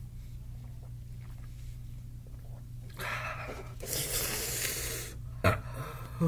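A man breathing out hard and noisily for about two seconds, then two short, loud throat sounds near the end, the second dropping in pitch.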